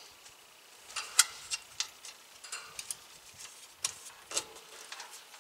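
Irregular sharp metallic clicks and ticks, about eight of them, the loudest just over a second in: small screws and the metal fan grille of a heat pump's outdoor unit being handled as the top is refitted.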